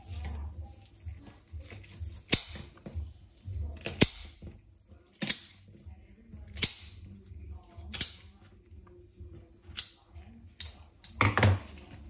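A run of sharp knocks, about one every second and a half, with a closely spaced pair near the end, over a low rumble.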